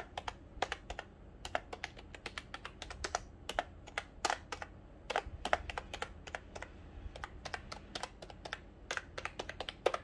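Fast, irregular typing on a Logitech G213 Prodigy's Mech-Dome membrane keys: a quick run of key clacks, several a second, thickening into denser flurries about halfway through and near the end.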